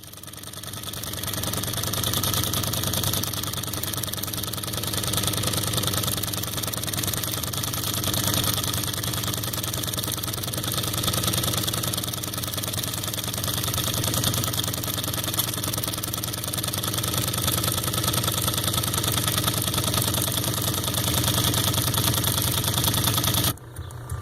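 Singer 114w103 industrial chain-stitch embroidery machine sewing at its single speed, driven by its electric motor once the engaging lever is pulled down. It makes a fast, steady mechanical clatter that builds up over the first two seconds and cuts off suddenly near the end.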